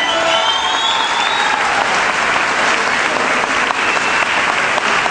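Concert audience applauding as the band's last held note stops just after the start. A short rising tone sounds over the first second or so.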